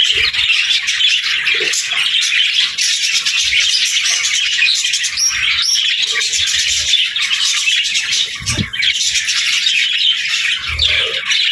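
A flock of budgerigars chattering and chirping without pause, many birds at once, with a few soft low thumps among the calls.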